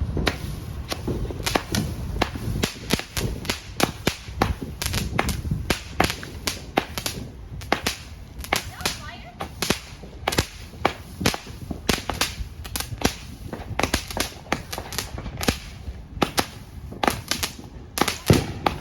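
Firecrackers going off in a rapid, irregular run of sharp cracks, several a second, over a low background rumble.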